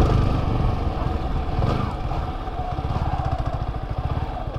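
Yamaha R15 V3's single-cylinder engine running at low revs with a steady rhythmic putter, easing off a little in the first second.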